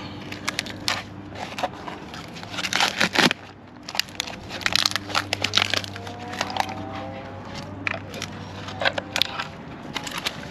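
Freshly cured fibreglass part and its wrapping of peel ply and cloth crackling and crunching as it is pried and worked loose from its mold by hand. The crackles are irregular, with two denser spells about a third and a half of the way in.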